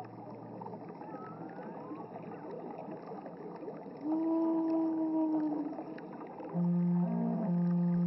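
Rushing creek water with a few faint bird chirps, then a low flute note held for about two seconds from about four seconds in, sinking slightly at its end. From about six and a half seconds a low flute melody of repeated notes begins over the water.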